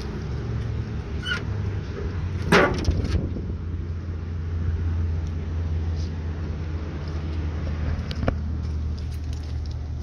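Vintage Cadillac car door's latch clacking open sharply about two and a half seconds in, with a fainter click before it and another near the end, over a steady low rumble.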